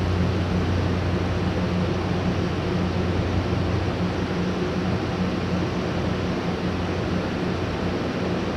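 Window-type air conditioner running steadily: a constant low hum under an even rush of fan air. The unit is running while being topped up with refrigerant, after an undercharge had iced its evaporator.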